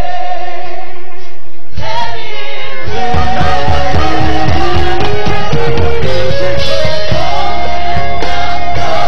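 Live gospel worship music with singers holding long notes; about three seconds in a fuller band sound with a bass line comes in under a melody that moves up and down in steps.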